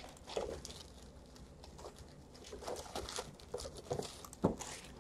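Faint crinkling and tapping of a shrink-wrapped trading-card box being handled and turned over in the hands, with a sharper tap near the end.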